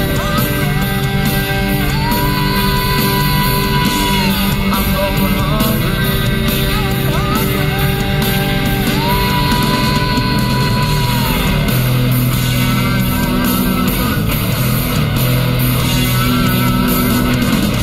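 Rock song playing, with electric guitar and a male singer. The singer holds two long high notes, each lasting a couple of seconds.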